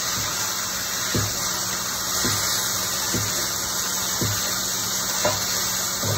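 Ground beef and onions sizzling in a frying pan, with a flat metal spatula striking down into the pan about once a second, six times, as it chops up the browning meat.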